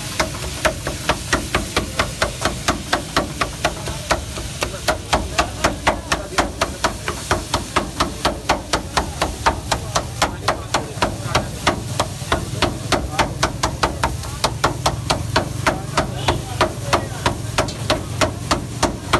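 Metal scraper blade chopping filling on a hot steel flat-top griddle: fast, even metallic clacks, about three to four a second, over a steady sizzle.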